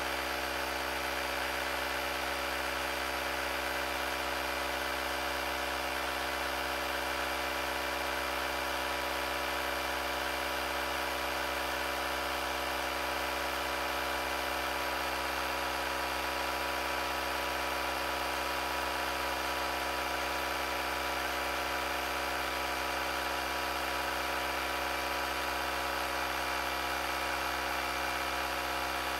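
AUTOOMMO cordless tire inflator's small electric compressor running steadily, pumping up a flat front motorcycle tire.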